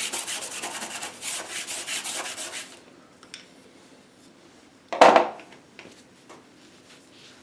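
A dry bristle brush scrubbing acrylic paint into the painting in rapid back-and-forth strokes to blend the sky's gradient, stopping after nearly three seconds. About five seconds in there is a single loud knock.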